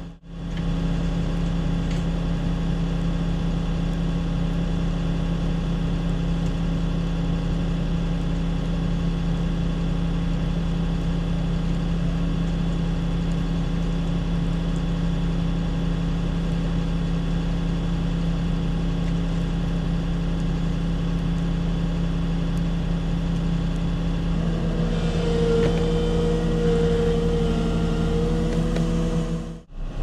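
Heavy truck diesel engine running steadily at a constant speed. About 25 seconds in, a higher whine joins and the sound grows a little louder.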